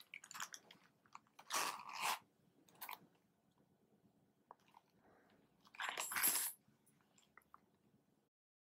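A small crocodile-leather L-zip wallet being handled and zipped shut: short rustling, scraping rasps with a few light clicks, the two loudest about a second and a half in and about six seconds in.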